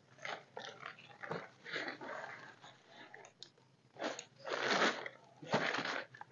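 Plastic tarp groundsheet crinkling and rustling as it is pulled and smoothed out, in irregular bursts, the loudest about four and a half seconds in and again just before the end.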